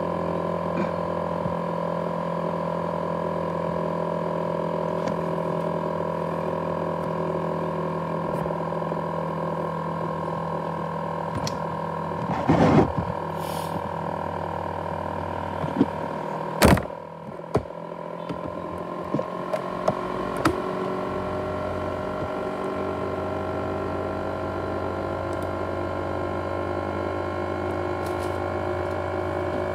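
ASUS X543UA laptop's cooling fan running with a steady jet-engine-like whine and hum, its pitch creeping slowly upward in the last third. Around the middle a rustle and a sharp knock break in, followed by a few lighter clicks.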